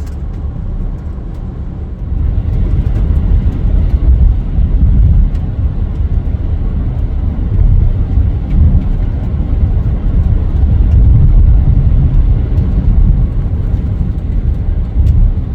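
Car driving at highway speed: a steady, heavy low rumble of road and engine noise that gets louder about two seconds in.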